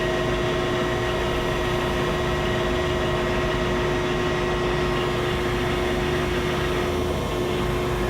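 Okamoto column-type surface grinder running steadily, its grinding wheel spinning and hydraulic unit humming, with a few steady tones over an even drone. The wheel head being jogged up and down adds nothing distinct: the machine is very quiet and runs smooth.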